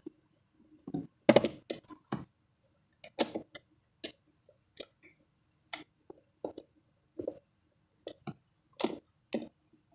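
Hand screwdriver turning a screw to tighten the plastic battery hold-down cover in a ride-on toy car: a string of short clicks at irregular intervals.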